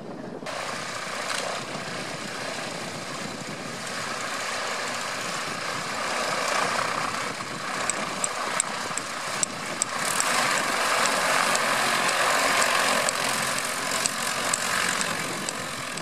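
Piston engine and propeller of a WWII liaison light plane running at taxi power as the plane rolls close by, getting louder and nearest about ten seconds in.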